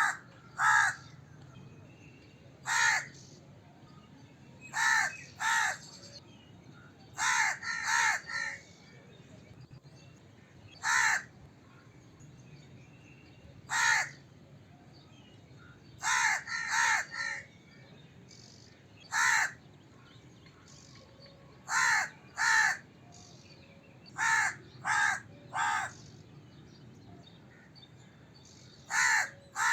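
A crow cawing: harsh single caws and short runs of two or three caws, with pauses of a second or more between them.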